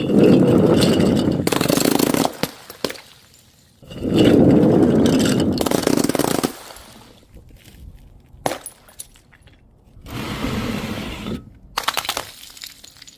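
Glass being crushed, crunching and crackling in three long, loud bursts, with sharp snaps of breaking pieces in between.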